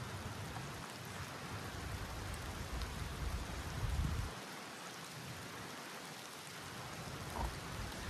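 Steady rain falling, an even hiss, with a low gusty rumble underneath that eases off about halfway through.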